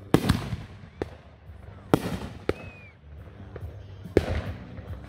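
Aerial firework shells bursting in the sky: a series of sharp bangs, each trailing off in an echo, spaced a second or two apart. A short whistling tone sounds about halfway through.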